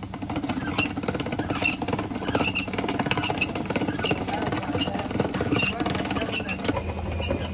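Hand-cranked ice cream churn: the rusty iron gear head on a wooden ice-and-salt bucket being turned by its handle, with a continuous fast metallic rattling and grinding and a short high squeak recurring a little more often than once a second.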